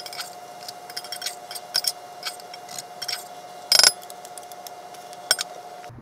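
Slotted metal spatula scraping and clanking against a cast iron skillet while stirring chopped vegetables, with a loud clank a little before four seconds in and another about five seconds in, over a faint steady tone.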